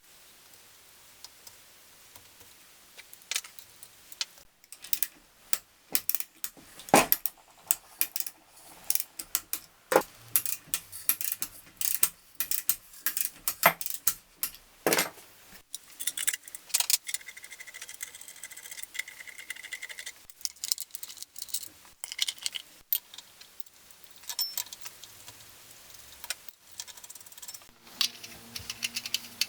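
Irregular metallic clinks and taps of tools and engine parts being handled, thickest in the middle stretch.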